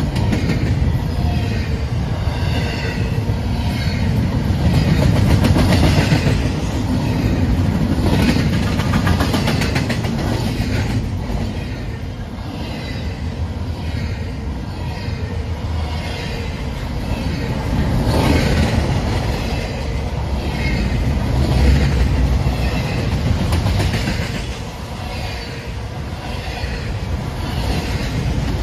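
Double-stack intermodal container cars rolling past at close range: steel wheels rumbling and clattering over the rail joints, the sound swelling and easing as the cars go by.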